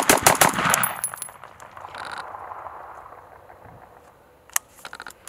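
AR-15 rifle fired in a fast string of shots during the first second, followed by a metallic clang about two seconds in and a few light clicks near the end.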